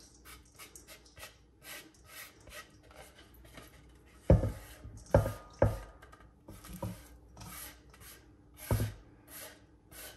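Minced herbs and garlic being scraped off a bamboo cutting board into a stainless steel bowl: a run of short, quick scraping strokes on the wood. A few louder knocks, about four to six seconds in and again near the end, as the board bumps the bowl's rim.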